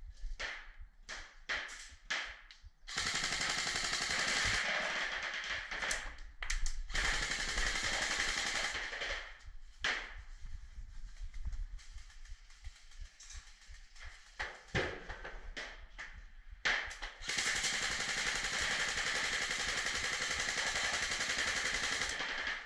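Airsoft electric gun firing on full auto inside a corrugated steel shipping container. Short separate bursts come first, then a long continuous burst of about six seconds from about three seconds in, and another of about five seconds near the end.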